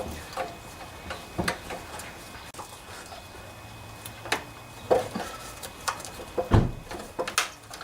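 Scattered clicks and knocks of hand tools and small metal parts being handled while parts are taken off a leaking fuel valve, with one heavier thump about six and a half seconds in.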